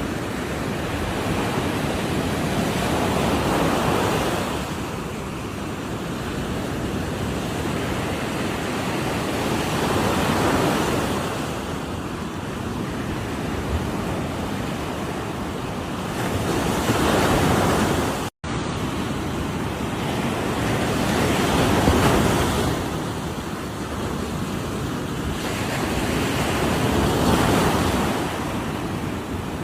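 Ocean surf: waves breaking and washing ashore in slow surges about every five to six seconds. The sound cuts out for a split second just past halfway.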